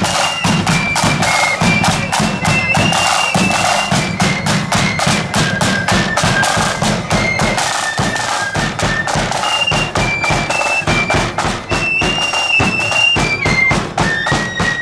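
Marching flute band playing a march: shrill flutes carry a high, stepping melody over steady side drum and bass drum beats.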